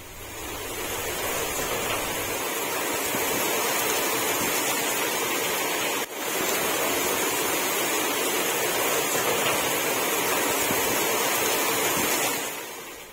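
Steady rush of flowing floodwater, with a brief break about six seconds in; it swells up at the start and fades away near the end.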